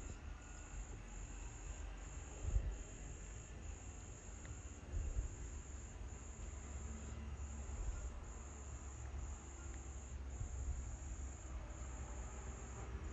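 Cricket chirping: a steady high-pitched trill broken by short, regular breaks, over low rumbling background noise.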